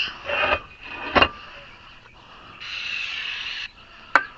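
Aerosol can spraying in one steady hiss of about a second, with a sharp click before it and another near the end.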